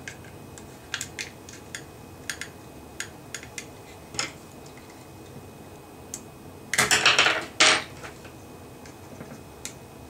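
Metal pick prying at the snap tabs of a plastic refrigerator timer case: scattered light plastic clicks and scrapes, then a loud burst of clattering clicks about seven seconds in.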